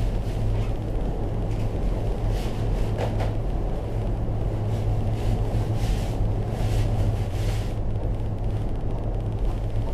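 Steady low hum and rushing inside a moving aerial cable car cabin, with a few brief faint ticks or rattles.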